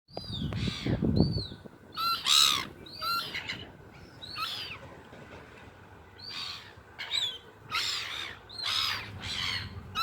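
Seagulls calling over and over, a run of harsh arched squawks, some overlapping, loudest about two seconds in, as the gulls squabble over food.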